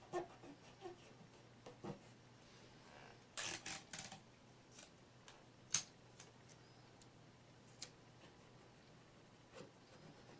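Strips of tape being handled and pressed by hand across a ceramic statue's glued arm joint to hold it tight while the epoxy sets: faint rubbing and small clicks. There is a short burst of crackling about three and a half seconds in and a single sharp click a couple of seconds later.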